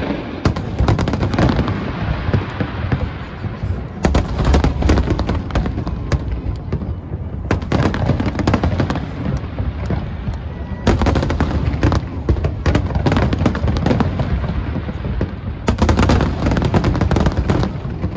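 Large aerial fireworks display: rapid volleys of shells bursting, many bangs close together over a continuous low booming rumble. The densest volleys come about four, seven, eleven and sixteen seconds in.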